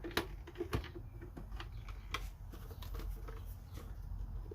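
Irregular clicks and taps of hard plastic vacuum parts and attachments being handled, a few sharp ones spread through, over a faint steady low hum.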